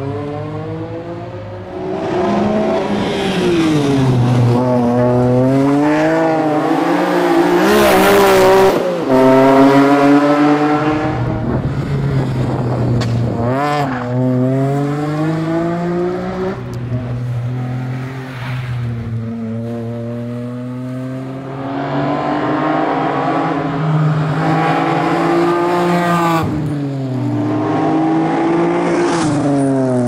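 E46 BMW M3's straight-six engine revving hard through the gears at racing pace, its pitch climbing and falling again and again as it shifts and brakes, with the loudest passes around 8 to 10 seconds in.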